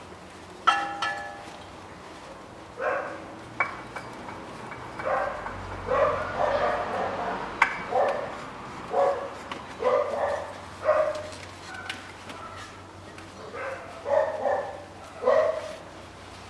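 A dog barking over and over, about fifteen short barks in irregular groups, with a couple of sharp clicks.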